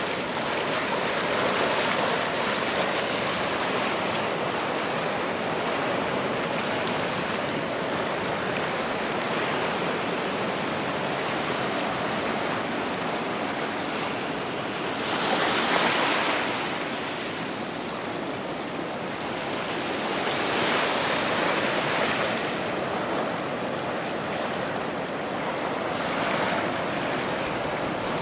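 Small sea waves breaking and washing up a sandy beach: a continuous wash of surf that swells louder several times, most strongly about halfway through.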